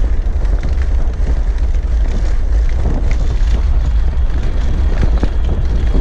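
Electric four-wheeled bike rolling over cobblestones, its frame rattling with many small irregular jolts, under heavy wind rumble on the microphone.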